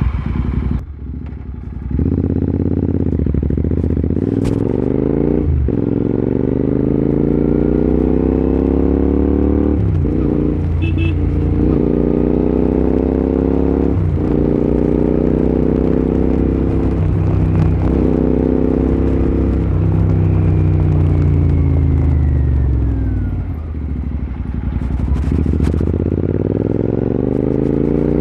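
Royal Enfield Continental GT 650's parallel-twin engine through a Red Rooster aftermarket exhaust, accelerating hard from about two seconds in, the revs climbing and dropping at each of several upshifts about four seconds apart. Around twenty seconds in the revs fall off as it slows, then it picks up speed again near the end.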